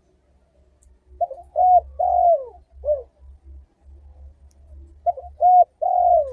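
Spotted dove (tekukur) cooing, two phrases about four seconds apart, each a short note, a rising-and-falling coo, a long falling coo and a short closing coo. A faint low hum lies underneath.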